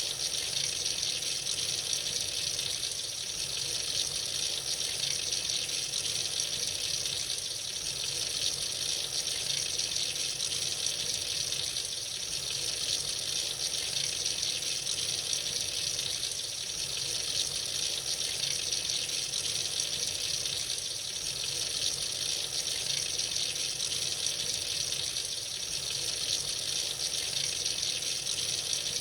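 Tap water running freely into a sink in a steady, unbroken stream.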